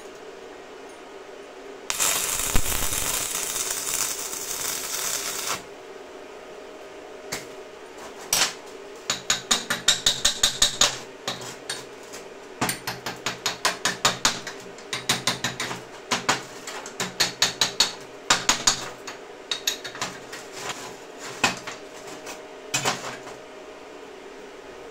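Stick-welding (MMA) arc with a 2.5 mm electrode at 100 amps: a steady crackling hiss starting about two seconds in, lasting about three and a half seconds and cutting off suddenly. Then runs of quick metal-on-metal knocks, several a second, from chipping the slag off the fresh weld.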